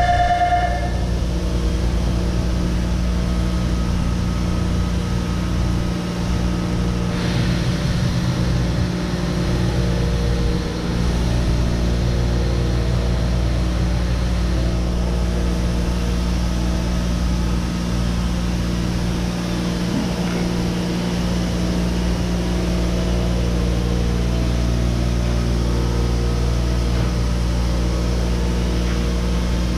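A steady machine hum with a low electric buzz.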